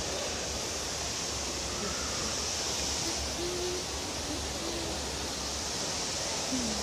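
Steady rushing hiss of a large indoor waterfall falling through the conservatory dome, with a few faint short tones near the middle.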